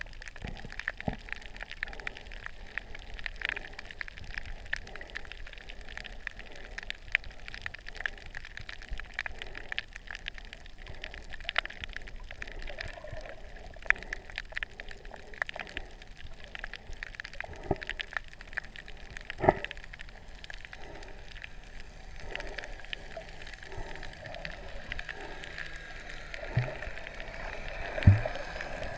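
Underwater sound picked up by a camera in a waterproof housing: a steady crackle of scattered sharp clicks over a low water hiss. A few louder dull thumps stand out, about two-thirds of the way through and near the end.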